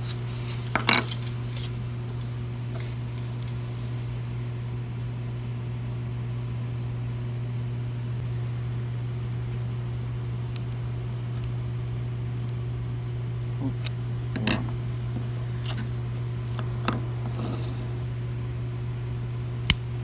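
Scattered clicks and scrapes of a steel chisel prying a Bondo-filled aluminum tube plug out of an MDF mold, and of tools and parts handled on a hard work surface, with a loud click about a second in and a sharp one near the end. A steady low hum runs underneath.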